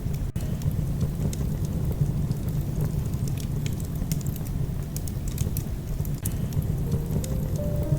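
Wood fire burning in a fireplace: irregular sharp crackles and pops over a low steady rumble of the flames. Soft music with held notes fades in near the end.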